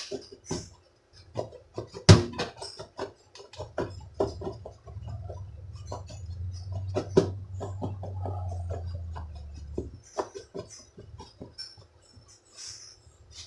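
Fish pieces shaken in a plastic container of fish fry batter mix to coat them: a quick run of rattles and knocks, with one loud knock about two seconds in. A low hum sounds beneath the middle stretch.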